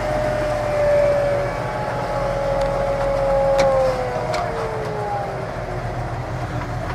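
Tractor diesel engine running with the PTO driving a pneumatic maize planter's blower fan, heard from inside the cab. The fan gives a steady whine that slides down in pitch between about four and six seconds in, over a low engine drone, with a few sharp clicks along the way.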